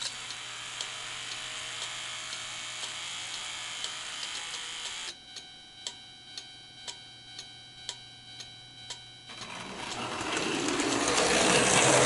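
O-gauge model railroad crossing's warning bell ringing in steady strokes, about two a second. For the first five seconds a mechanical running noise lies under it, and near the end a louder running noise of a model train builds up and drowns the bell.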